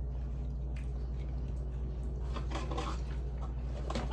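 Faint handling noises, soft rustles and light clicks, over a steady low hum, with one sharp click at the very end.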